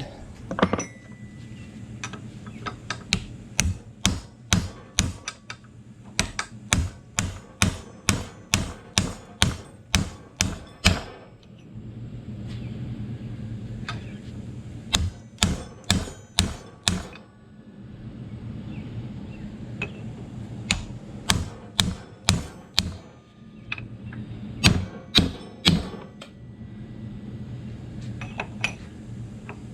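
Hammer striking a drive shaft's universal joint to drive out its bearing cups: sharp metal-on-metal blows, about two a second, in several runs with short pauses. A steady low hum runs underneath.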